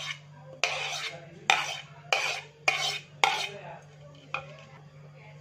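A metal spoon scraping and clinking against a ceramic plate as chopped pineapple is spooned off it: about six sharp clinks over the first four seconds or so.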